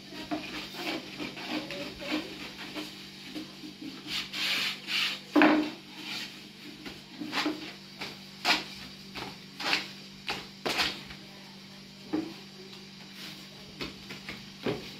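Long thin wooden rolling pin rolling out flatbread dough on a round wooden board: rubbing and rolling, with a series of sharp wooden knocks as the pin strikes the board. The loudest knock comes about five seconds in.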